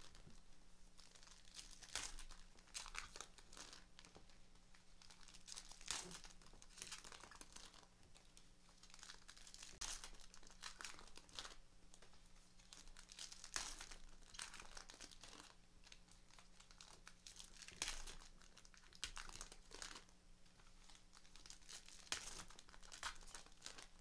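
Plastic and foil wrappers on trading-card boxes and packs crinkling and tearing as they are opened, in irregular bursts every second or two.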